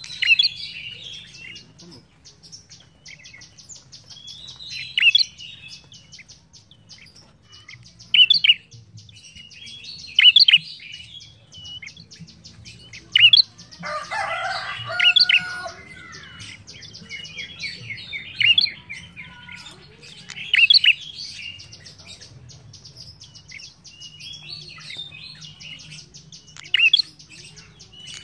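Caged tailorbird (the rufous-capped 'prenjak kepala merah') singing hard: loud, sharp, high chirps in bunches every two to three seconds, with rapid high ticking trills in between.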